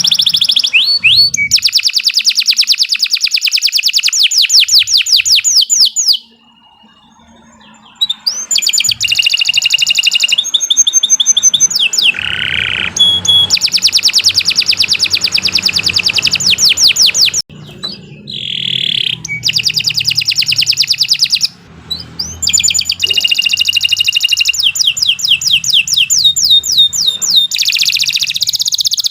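Domestic canary singing long, fast trills of rapidly repeated high notes, one roll running into the next. The song breaks off into a pause of about two seconds some six seconds in, and has brief breaks later on.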